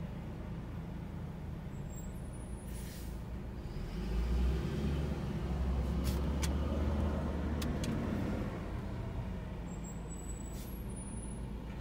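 Sterling Condor garbage truck driving off, its engine a low rumble that swells for a few seconds in the middle as it pulls away through a turn, heard from inside a car behind it. A brief hiss comes about three seconds in, and a few sharp clicks follow.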